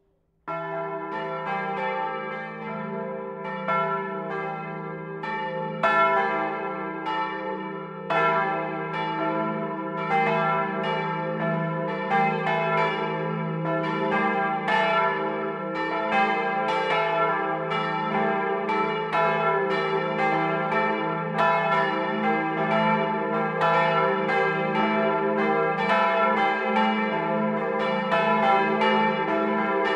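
The church's peal of three bells, cast in 1951 by the Otto foundry and swung electrically, ringing together and recorded up close inside the bell tower. The strokes overlap in a steady stream over a long low hum. The ringing starts suddenly about half a second in and becomes fuller from about eight seconds on.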